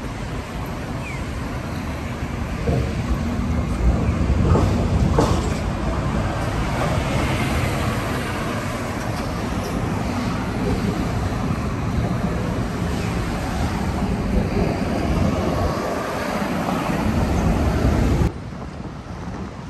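Road traffic noise from passing vehicles: a steady, loud wash with a heavy low rumble, dropping away suddenly near the end.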